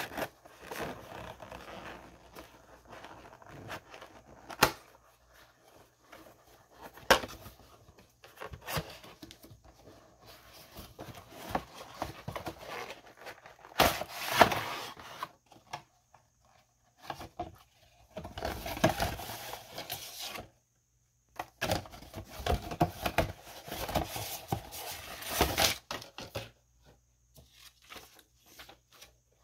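Cardboard toy packaging handled by gloved hands as the box is opened: scattered taps and clicks from the end flap, then stretches of sliding, scraping and rustling as the inner packaging is pulled out, loudest in bursts in the middle and second half.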